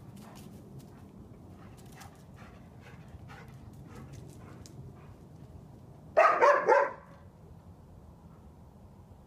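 A dog barking three times in quick succession, about two-thirds of the way in.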